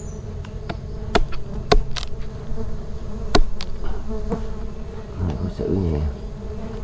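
Bees buzzing steadily around a freshly opened wild nest, crossed by several sharp clicks and snaps, the loudest a little over a second in and about three and a half seconds in.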